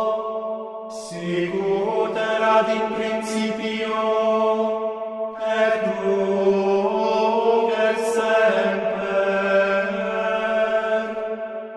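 Men's voices singing slow Latin liturgical chant in long held notes, with a few sung words breaking the sustained tones.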